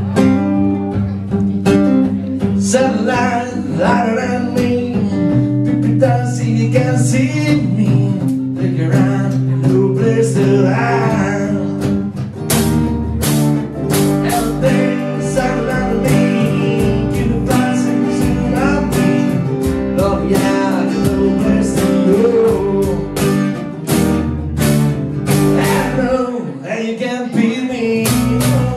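Live acoustic band playing a song: strummed acoustic guitar with upright bass and a steady beat of hand percussion, and a voice singing over it.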